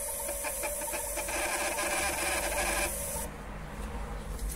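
The built-in thermal receipt printer of a DP-25 MX fiscal cash register prints the receipt after the total key is pressed. It runs as a steady, finely rhythmic whirr and stops about three seconds in.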